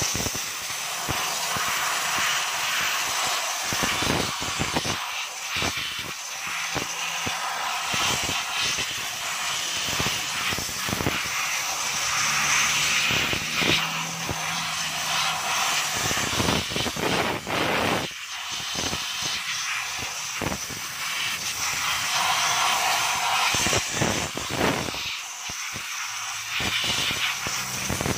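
Compressed-air spray gun hissing as it blasts cleaning liquid from a bottle over a drum brake's shoes and springs, in long bursts with a few brief breaks.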